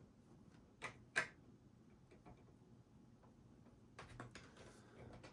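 Two sharp clicks about a second in, then a cluster of faint clicks and scraping near the end: a thin metal RAM cover being worked back onto its tiny clips.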